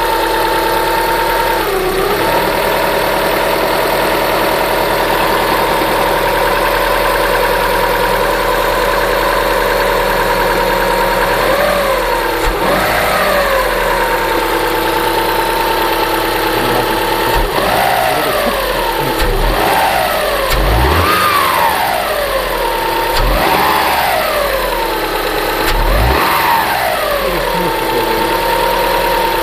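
Subaru Forester's flat-four boxer engine idling with a steady whine, then blipped up and back down about a dozen seconds in and several more times in the second half. The noise comes from the timing-belt area, which the owner blames on the fresh belt and idler rollers.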